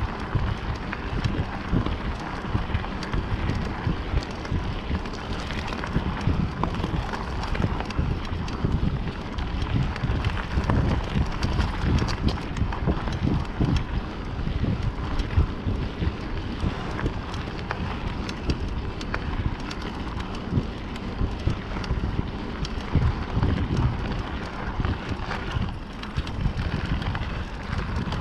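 Wind buffeting the microphone over the rumble and crunch of mountain bike tyres rolling along a gravel track, with small rattles from the bike.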